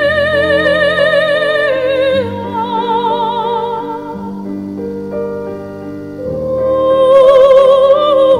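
Background music: an operatic voice sings long, held notes with wide vibrato over a soft accompaniment. It steps down about two seconds in, then rises to a louder high note for the last couple of seconds.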